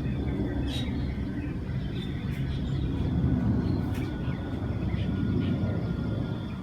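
Outdoor ambience: a steady low rumble with a few faint bird chirps over it.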